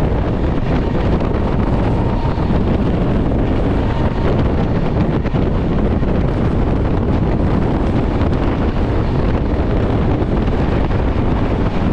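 Steady running noise of a moving passenger train heard from on board, a loud rumble with wind buffeting the microphone.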